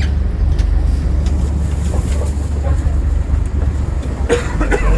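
Boat engine running steadily with a deep, throbbing rumble, with faint voices about four seconds in.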